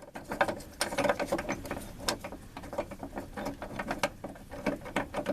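Ratchet clicking in quick, uneven strokes as a T-50 Torx bit unthreads a truck's door striker bolt.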